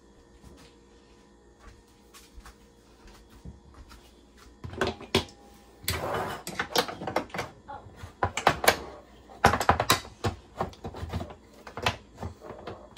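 After a few quiet seconds, an electric griddle is handled on a countertop: a run of clicks and knocks as its plug-in temperature-control probe is pulled out and the griddle is shifted, with a short scraping rattle about six seconds in.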